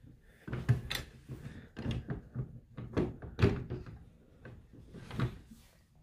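Irregular knocks and thuds on wooden furniture, like doors or drawers of a wooden cabinet being handled, strongest about a second in and again around the middle.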